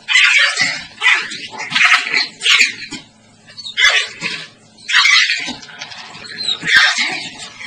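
Dogs barking in short, loud, separate bursts, about seven of them, while squabbling over a food bowl: a dog guarding its food.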